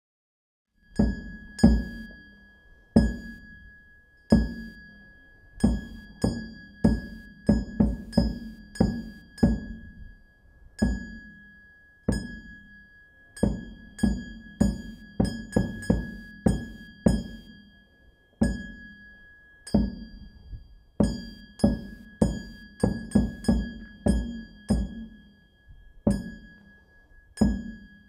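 Irregular series of loud percussive strikes, one to three a second, each ringing out and fading over about a second, starting about a second in, with a thin steady high tone underneath.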